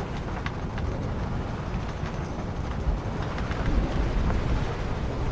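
Wind buffeting the microphone over the steady rush of water along the hull of a sailing yacht under sail in a good breeze.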